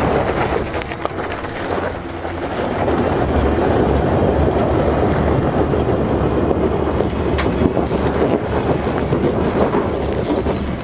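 Chevy Silverado Trail Boss's 5.3-litre V8 under heavy throttle in two-wheel drive, with the rear tyre spinning and spraying gravel and dirt as it loses traction on a loose climb. It grows louder about two seconds in.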